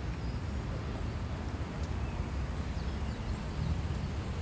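City street ambience: a steady low rumble of traffic with a few faint, high chirps over it.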